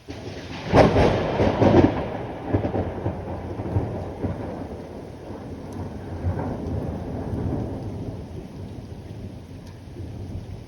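A thunderclap: a loud crack about a second in, breaking into a rolling rumble that slowly dies away over several seconds, with rain falling underneath.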